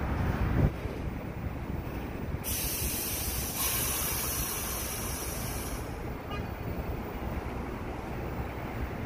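R62A subway train standing in an elevated station, its equipment running steadily, with a hiss of released air starting about two and a half seconds in and lasting about three seconds.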